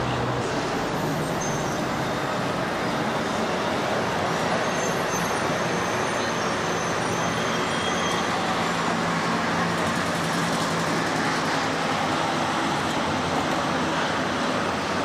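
Steady city road traffic noise from cars and vans driving past, with a low engine hum under it.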